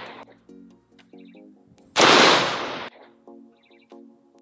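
BCM lightweight mid-length AR-15 with an A2 flash hider, firing single, slow-paced shots. One shot comes about halfway through, with its report fading over about a second. A second shot comes right at the end, and the fading tail of the shot before is heard at the start.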